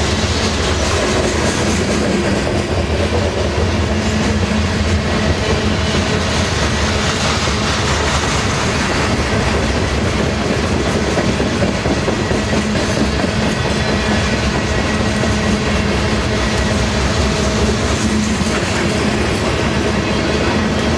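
Loaded freight cars of a grain train rolling steadily past, the wheels rumbling and clattering over the rails.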